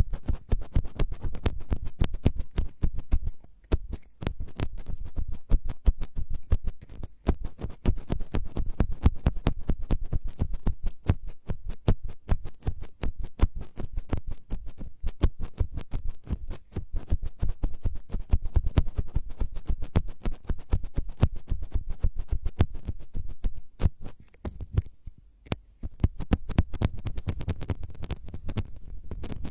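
Rapid close-up scratching and tapping on an ASMR microphone: a dense, fast run of crisp clicks with a few brief pauses.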